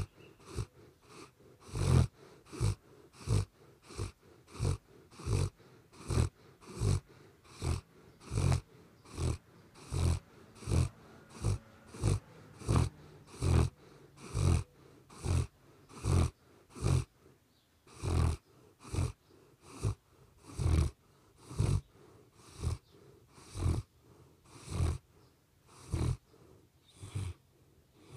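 A sleeping dog snoring in a steady rhythm, about three short snores every two seconds.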